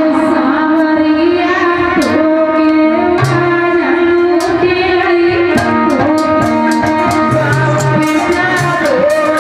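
Harmonium playing a sustained, reedy melody over held notes, with percussion strokes keeping the beat in Indian devotional style.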